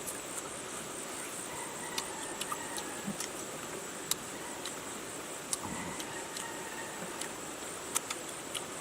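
Forest background with a steady high insect drone and scattered sharp clicks every second or so.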